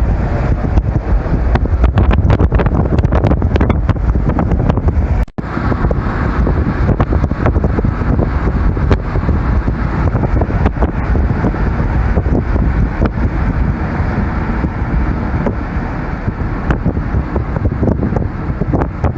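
Car driving, with heavy rumbling wind and road noise on the microphone and scattered crackles. The sound drops out for an instant about five seconds in.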